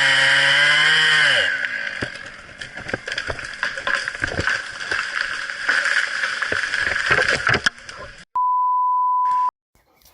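A chainsaw running at high revs that winds down about a second and a half in, followed by scattered sharp cracks and knocks. Near the end comes a steady one-second beep tone of the kind used to bleep out a swear word.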